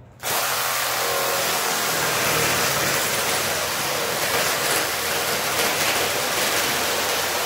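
Cordless reciprocating saw cutting through white PVC drain pipe: the saw starts abruptly about a quarter second in and runs steadily at one even speed through the cut.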